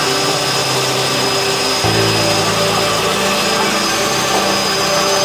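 Steady noise of a tour helicopter in flight, with music of held chords laid over it; the chord changes about two seconds in.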